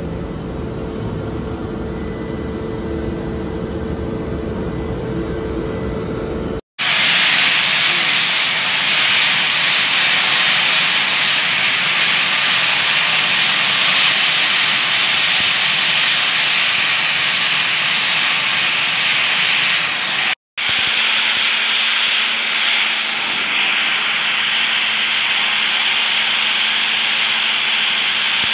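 Sandblasting: compressed air and fine sieved sand hissing loudly and steadily from a hand-held improvised nozzle onto the blades of an impulse-reaction turbine rotor, stripping its coating. The hiss starts abruptly about seven seconds in and breaks off briefly about twenty seconds in. Before it there is a low steady rumble and hum.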